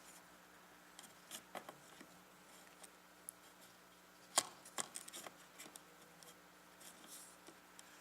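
Small plastic clicks and taps from pressing a RAM stick down into a motherboard memory slot, with one sharper click about halfway through followed by a quick run of smaller ones.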